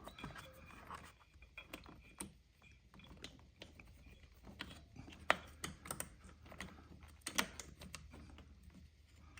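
Irregular light clicks and taps as the idle air control valve is worked loose by hand from the throttle body of a Harley-Davidson 96-inch Twin Cam, with a sharper click a little past five seconds and another at about seven and a half seconds.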